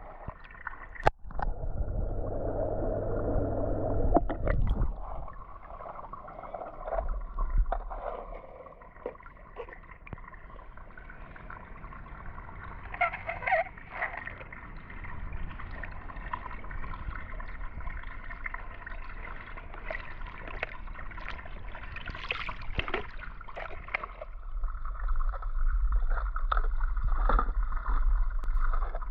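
Pool water gurgling and sloshing at the wet overflow edge as plastic toy cars are pushed through it and set afloat, with scattered light clicks and knocks of the toys being handled.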